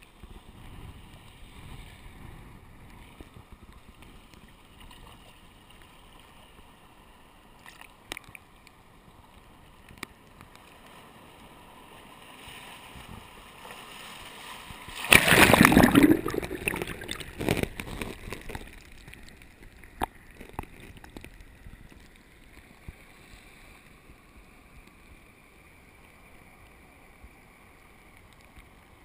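Surf burbling into a rocky tide pool, heard from the waterline with the microphone half awash: low sloshing and gurgling. About halfway through a wave surges in over the camera with a loud rush lasting a few seconds, then settles back to gentle sloshing.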